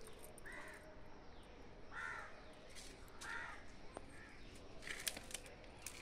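A crow cawing several times, about a second and a half apart.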